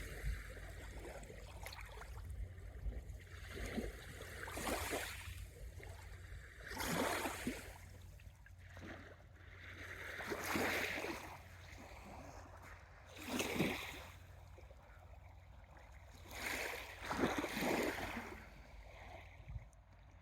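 Small sea waves washing onto the shore, one surge of surf every three or four seconds, each rising and falling away, over a steady low rumble.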